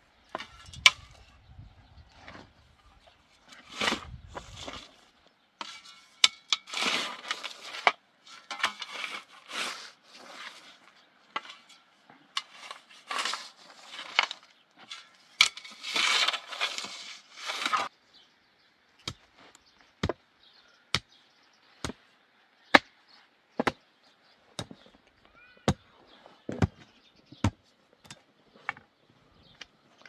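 Shovel scraping and scooping dry, stony soil in repeated bursts. Over the last third this gives way to a run of sharp single knocks, roughly one a second.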